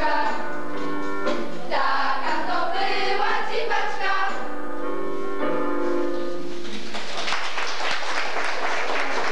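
A group of young voices sings a song with music, ending about six and a half seconds in. Audience applause follows.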